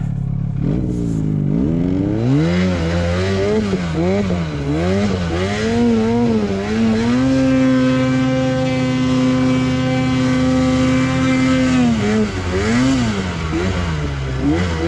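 Ski-Doo mountain snowmobile engine revving under load in deep powder as the sled is worked free and turned around from a stuck. The revs rise and fall several times, are held high and steady for about five seconds in the middle, then drop and pick up again near the end.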